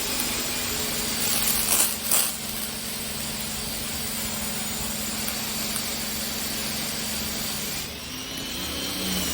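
Pressure washer running and spraying water: a steady hum under the hiss of the spray. About two seconds in it spits twice sharply, from air trapped in the long hose. Near the end the hum dips and wavers in pitch.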